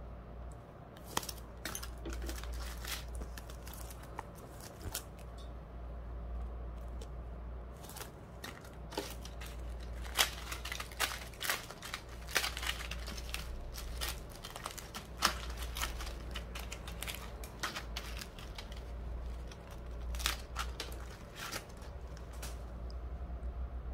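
Small clear plastic bags of nail charms crinkling and crackling as they are handled, with many irregular sharp crackles and clicks, over a steady low hum.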